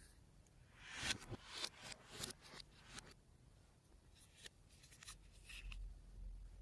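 Slime being worked by hand, with irregular sticky crackles and pops in two short spells.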